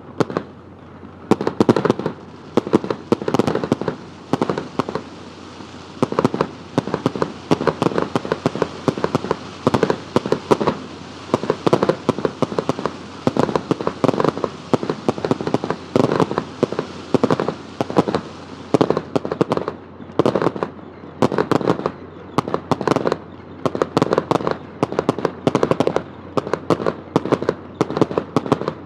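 Aerial fireworks bursting in rapid volleys, a dense run of sharp bangs and crackle coming in clusters about once a second.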